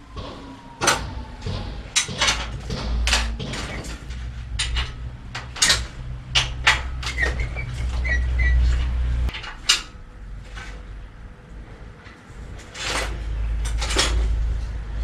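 Repeated clicks, knocks and clatter of a bicycle being handled and worked on, with a short squeak about seven seconds in. A low rumble runs underneath for two stretches.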